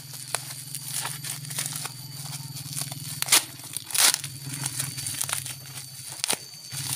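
Black plastic and packing-tape wrapping being torn open and crinkled by hand: a string of crackles, with two louder rips about three and four seconds in.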